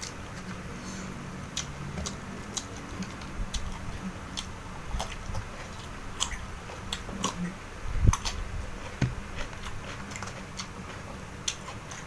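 Close-miked chewing and biting of food, with irregular crisp clicks from the mouth and teeth. A louder thump about eight seconds in.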